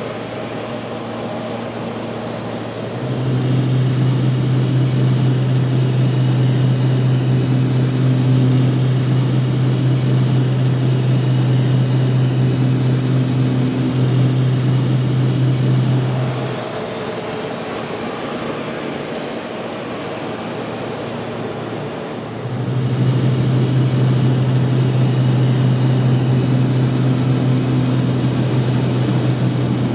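Twin turboprop plane's propellers and engines heard from inside the cabin: a steady low drone over rushing noise. It grows louder about three seconds in, falls back for several seconds after the middle, then returns.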